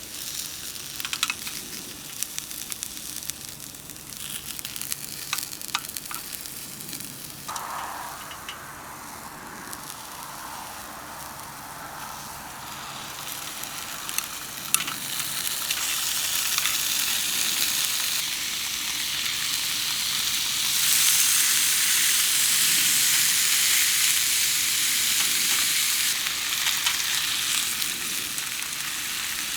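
Food frying in a pan over a camp stove. Scattered crackles at first, then a steady sizzle that swells about halfway through and stays loud.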